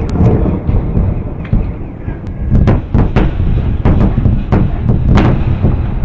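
Shock wave from the 2013 Chelyabinsk meteor airburst: a loud low rumble, with a run of sharp bangs in the second half.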